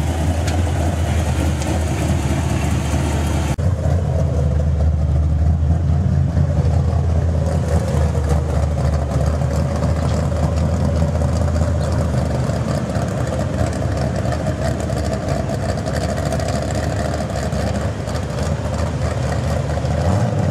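1967 Pontiac GTO's V8 running at low speed with a steady, deep exhaust note as the car idles and rolls away slowly.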